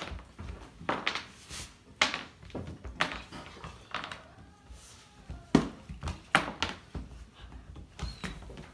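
German Shepherd puppy's paws and claws tapping and thumping on a hardwood floor as it scrambles and pounces, in irregular knocks with the loudest about five and a half seconds in.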